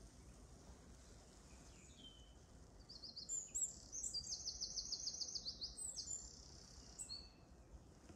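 Songbirds singing: a few short high calls, then one bird's song with a fast run of repeated high notes in the middle, over a faint background hush.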